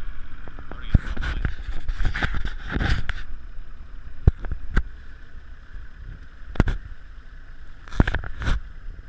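Outboard boat engines idling steadily. Sharp knocks and scrapes of the camera being handled break in repeatedly, along with wind on the microphone.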